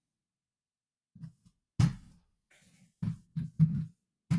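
Computer keyboard keys tapped in short, irregular bursts, a couple of single taps and then a quick run of four or five, entering numbers into a calculator.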